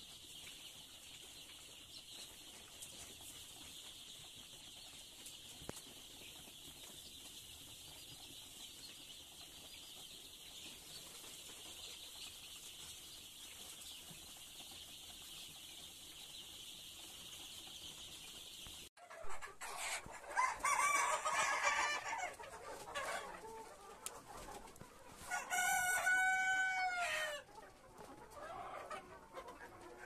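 A dense chorus of Sonali chicks peeping, a steady high-pitched wash. About two-thirds in it cuts abruptly to adult chickens: loud calls and then a long rooster crow whose last note falls away.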